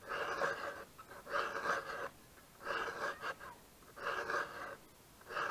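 Chainsaw file being pushed through the cutters of a chainsaw chain by hand, one rasping stroke a little more than once a second, five strokes in all.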